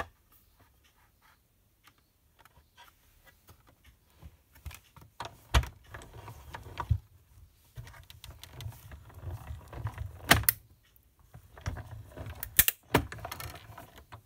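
Manual die-cutting machine drawing a stack of cutting plates, a metal circle die and patterned paper through its rollers as the handle is cranked: a low rumble from about four seconds in, with several sharp clicks and clunks.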